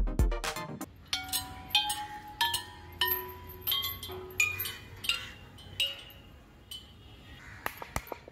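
Hanging tubular chime pipes struck one at a time with a mallet, about eight strikes. Each rings at its own pitch. A beat of music ends about a second in, and a few sharp taps come near the end.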